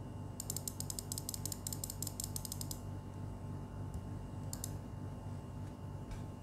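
Typing on an RK61 mechanical keyboard with lubed Huano red linear switches, the keys bottoming out: a fast run of keystroke clacks, about nine a second for two seconds, then a couple more keystrokes later on.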